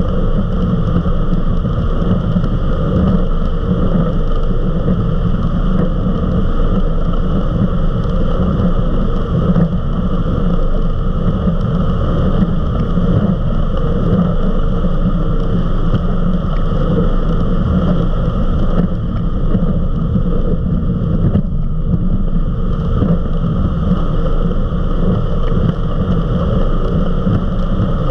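Eliminator 31 XO Speedster powerboat running at speed, about 68 mph: a loud, steady engine drone mixed with wind rush, holding even throughout.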